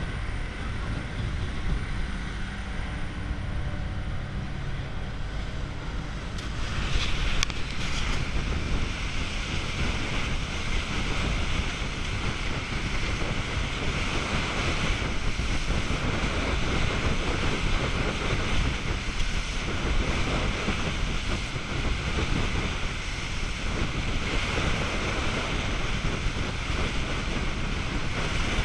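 Steady rush of water and spray along the hull of a fast aluminium passenger boat, with wind buffeting the microphone. The rush grows louder and hissier about six seconds in.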